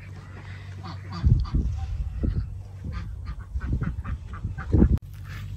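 Domestic geese honking, with several loud low thumps of handling and wind noise on the phone's microphone as it is carried.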